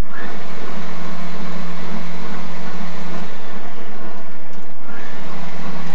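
Countertop electric kitchen machine (food processor or mixer) running steadily: a loud whirring motor with a steady low hum that shifts slightly about halfway through.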